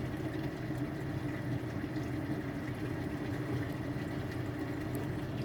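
Reef aquarium equipment running: a steady pump hum with water flowing through the sump, unchanging throughout.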